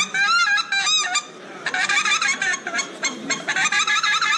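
Hand-blown goose call played by a caller: a few arched honks in the first second, then a fast run of short clucks, about five a second.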